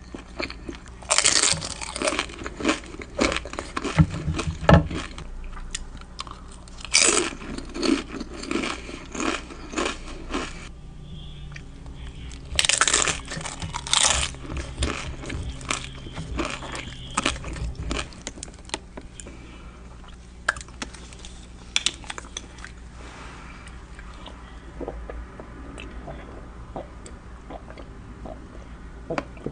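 Close-miked eating: loud crunchy bites, a cluster about a second in, another about seven seconds in and another about thirteen seconds in, each followed by wet chewing that grows quieter and sparser toward the end.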